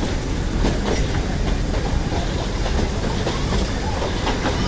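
Nilgiri Mountain Railway toy train running along the track: a steady rumble of the carriage, with the wheels clicking irregularly over the rails.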